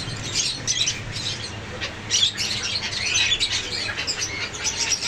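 Parrots calling: a dense, continuous run of short, high chirps and squawks, many overlapping.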